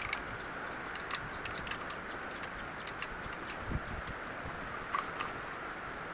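Scattered light clicks and taps, irregular and a few a second, over a steady hiss, like small hard parts being handled.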